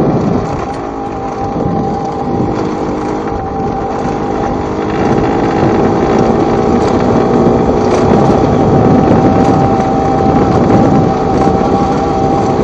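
Two-stroke engine of a Yamaha TZR / MBK X-Power bored out to 90 cc, running under way, heard from on board the moving bike. It eases off slightly about a second in and pulls harder, louder, from about five seconds in.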